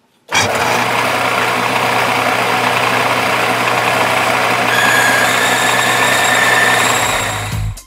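Metal lathe running while a long twist drill feeds into the end of the spinning bar: a loud, steady machine whine and cutting noise that starts abruptly. A high, steady squeal joins about five seconds in and fades before the sound drops away near the end.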